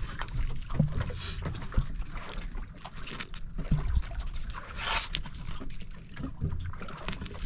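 Wind rumbling on the microphone, with short scraping and tearing sounds scattered through it as the tough skin of a triggerfish (pakol) is cut and pulled off. The loudest scrape comes about five seconds in.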